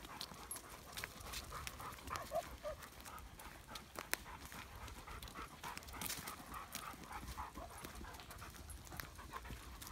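German shepherd dog panting steadily, with footsteps crunching on leaf litter and twigs.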